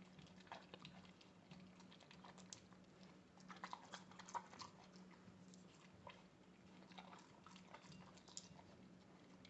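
Labrador retriever chewing a cold carrot: faint, irregular crunches, busiest around the middle.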